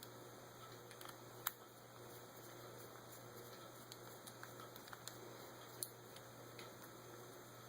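Quiet bench work: a few faint ticks and two sharp clicks of small metal carburetor parts and tools being handled while the choke is fitted back on a Holley carburetor, over a low steady hum.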